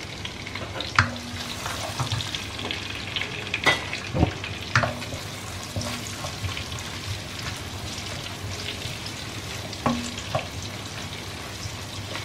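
Chopped onions sizzling as they fry in sesame oil and ghee in a pan, a steady hiss. A wooden spatula stirs them, scraping and knocking against the pan a few times.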